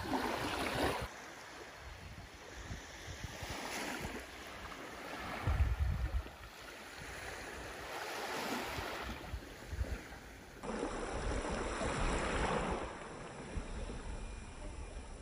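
Small waves washing onto a sandy beach, swelling every few seconds, with a short gust of wind on the microphone about halfway through.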